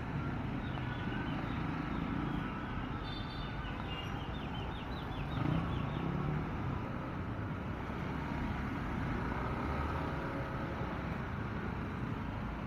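Motor scooter running at low speed amid heavy road traffic, a steady low rumble of engines and tyres. A quick run of short, high rising chirps sounds in the first half.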